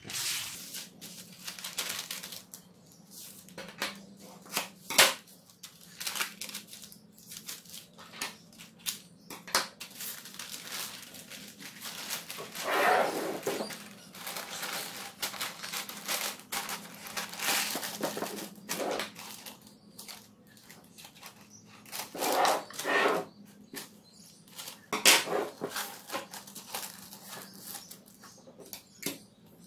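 A sheet of non-stick baking paper (parchment) being folded, handled and pressed into a wooden soap mould: irregular rustling and crinkling with sharp crackles, louder in a few stretches as the sheet is lifted and pushed into the box.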